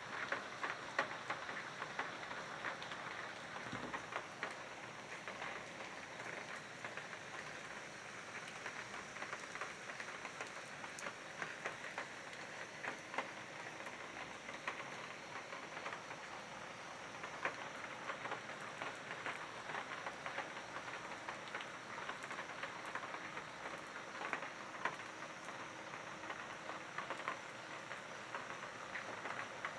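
Steady rainfall: an even hiss with many irregular sharp drop ticks scattered through it.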